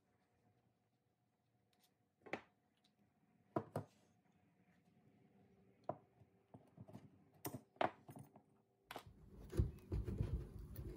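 Scattered clinks and knocks of metal brake caliper parts and pads being handled and set down on a wooden workbench. They come singly at first and more often near the end.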